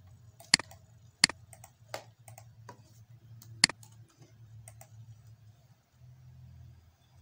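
Computer mouse clicks and keyboard key taps: a handful of sharp clicks, the loudest about half a second, a second and a quarter and three and a half seconds in, with lighter taps between, over a steady low hum.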